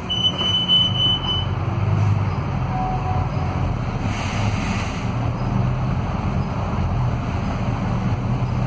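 Scania DC09 five-cylinder diesel engine and driveline of an articulated city bus running under way, heard from inside the passenger cabin as a steady low rumble with road noise. A steady high tone sounds for about a second right at the start.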